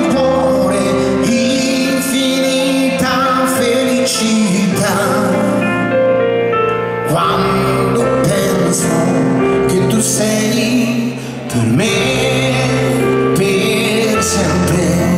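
Live band music with singing, heard from among the audience in a large arena.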